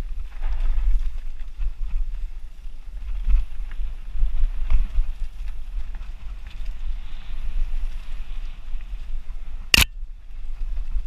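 Wind rumbling on a helmet-mounted camera's microphone as a mountain bike rolls along a dirt singletrack, with scattered light rattles and clicks from the bike. Near the end a single sharp, loud knock.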